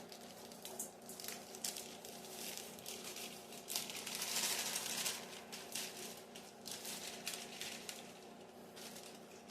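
Dry chocolate cake mix being poured from its plastic bag into a bowl: a soft pouring hiss with crinkling of the bag, loudest about four to five seconds in.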